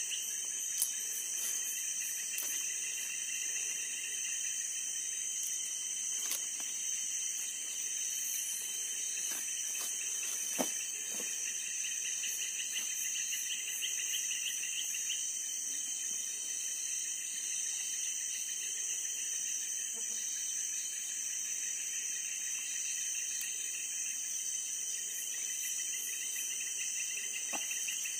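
Night chorus of crickets and other insects: a steady high-pitched trilling over a rapid, evenly pulsed chirping. Two sharp clicks stand out, one about a second in and one about ten seconds in.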